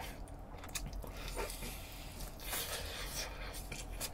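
Close-up chewing of crispy fried chicken, with wet mouth sounds and scattered small crunchy clicks as the meat is torn off the drumstick.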